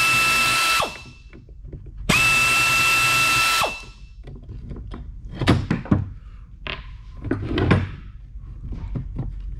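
Air ratchet running in two bursts, a steady whine with hiss, spinning the nut off a leaf spring pack's center pin. A few short metal clanks follow as the parts are handled.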